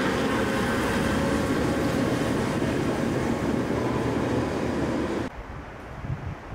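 Passing train: a steady, heavy rumble with faint squealing tones that cuts off abruptly about five seconds in, leaving quieter outdoor noise with a few low thumps.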